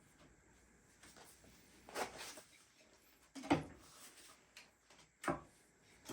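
Scattered knocks and clunks as the rebuilt Yamaha CT3 two-stroke engine is shifted into its frame, metal casing bumping against the frame, with three louder knocks (the loudest about halfway through) and quieter handling noises between them.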